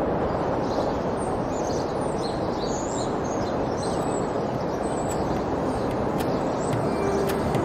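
Small birds chirping in short high calls over a steady rushing noise, as garden ambience; a few sharp clicks come near the end.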